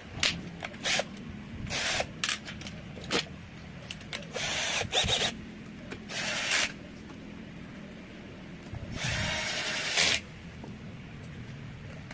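Cordless drill-driver with a socket running in about four short bursts, running down the bolts of a Honda Scoopy's CVT cover, with sharp clicks of socket and metal between the runs.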